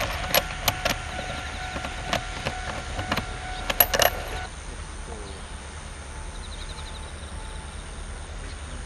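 ED45 electric locomotive passing on the Sanki Railway, its wheels clacking over rail joints with a steady whine. The clacks and whine stop about four and a half seconds in, leaving a quieter steady outdoor background with a few faint high chirps near the end.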